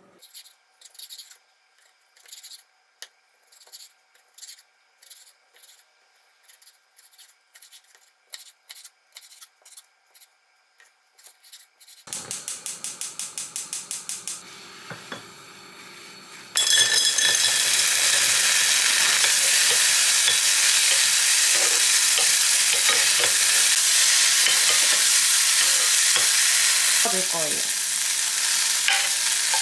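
Knife tapping on a wooden cutting board as blanched squid is sliced, then a quick run of clicks from the gas stove being lit. Past halfway a loud, steady sizzle of frozen mixed vegetables frying in a hot pan takes over, with a wooden spatula stirring and scraping kelp in near the end.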